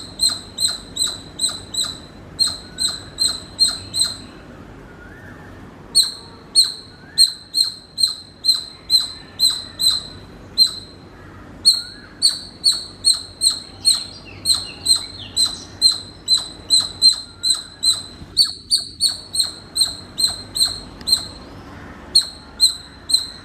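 Squirrel giving a long series of short, sharp, high-pitched chirps, about three a second, over a faint steady hiss. The run breaks off twice for a second or two.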